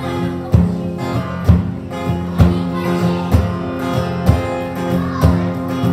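Live song, instrumental passage: acoustic guitars strummed in a steady rhythm, with a strong accented strum roughly once a second.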